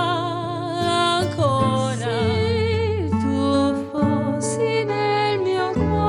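Two guitars playing a slow accompaniment while a soprano holds long notes with a wide vibrato.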